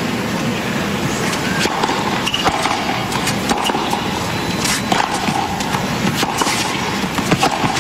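Tennis ball struck by rackets and bouncing on a hard court during a rally: a string of sharp hits, several of them in the second half, over a steady stadium crowd murmur.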